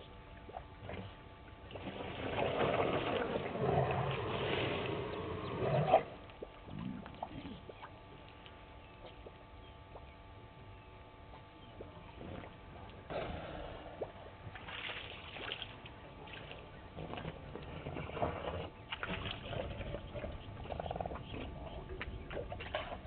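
African elephant bull drinking from a puddle: water sucked up in its trunk and squirted into its mouth, splashing and gurgling in a few spells. The longest and loudest spell comes in the first seconds and stops sharply about six seconds in, with quieter spells later.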